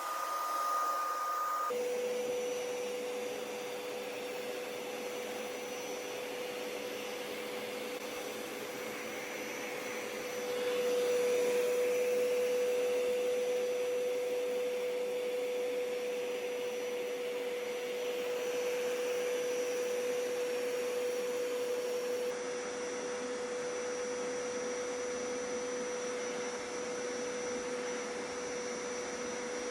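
Hoover PowerScrub Deluxe carpet cleaner running, its suction motor giving a steady whine as it sucks up a pre-treated stain; it gets louder about ten seconds in.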